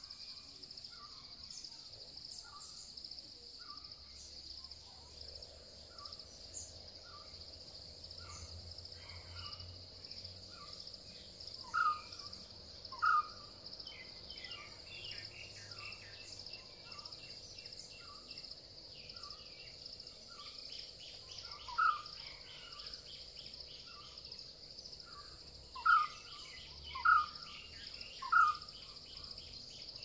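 Birds calling in forest: a short note repeated about once a second, six much louder calls (two together, one alone, then three in a row near the end) and quick high trills, over a steady high-pitched insect drone.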